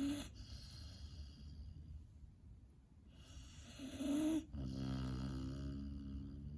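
Puppy snoring in its sleep: breathy snoring sounds with a short squeaky whistle at the start and again about four seconds in, followed by a long, low, buzzing snore of about two seconds.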